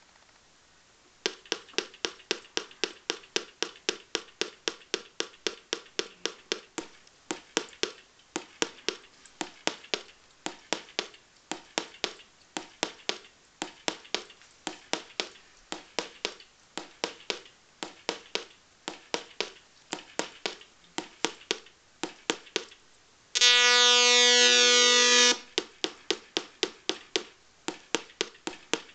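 Electronic beeper of a Velleman MK170 LED star kit, giving a rapid run of short beeps at about three a second. Near the end of the run they give way to a loud, steady buzzing tone lasting about two seconds, and then the beeps resume.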